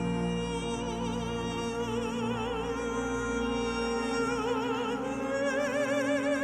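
A woman's voice holding long high notes with a wide, even vibrato in an operatic style, over steady sustained backing music.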